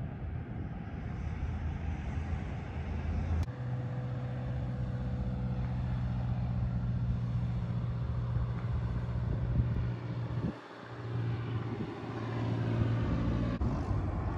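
Airplane on landing approach passing low, its engines a steady low rumble that briefly drops away about ten seconds in.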